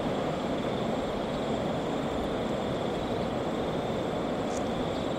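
Water rushing down a concrete dam spillway and churning into whitewater at its foot: a steady, even rushing noise.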